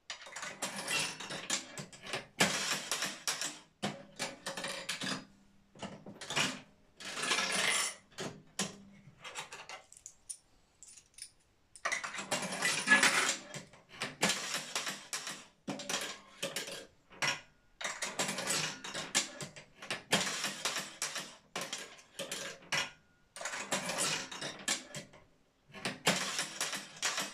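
Bryans Elevenses Allwin-style penny slot machine being played: a penny put in the slot and the ball flicked round the dial with the lever, giving metallic clicking and rattling from the coin and ball mechanism. The clatter comes in bursts one after another with short pauses, with a quieter gap of about two seconds near the middle.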